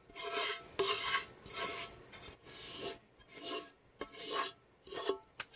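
Wooden spoon scraping the inside of a nonstick pot in short repeated strokes, about two a second, working thick, sticky bee fondant out onto a plate.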